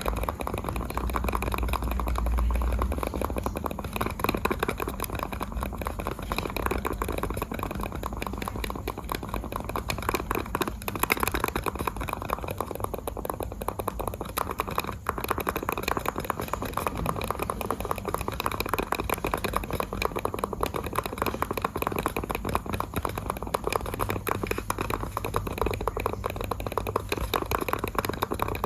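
Computer mouse buttons clicked rapidly and continuously, a dense run of many clicks a second at an even level.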